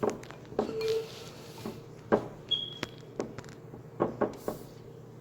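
Light knocks and clatter of objects being handled and set down, about eight in all, with a brief hiss near one second and a short high squeak about two and a half seconds in. The knocks stop a little before the end.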